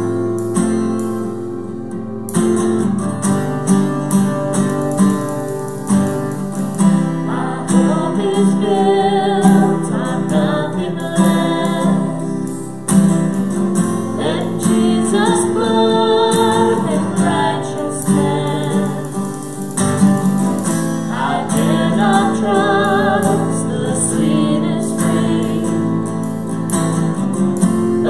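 Takamine acoustic guitar strummed with a steady cajon beat, and a woman and a man singing a worship song verse over them from about seven seconds in.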